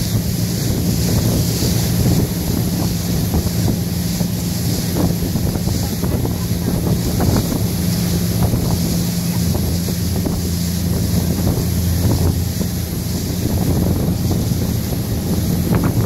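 A small motorboat underway on choppy sea: its engine runs with a steady low hum while water rushes against the hull and wind buffets the microphone.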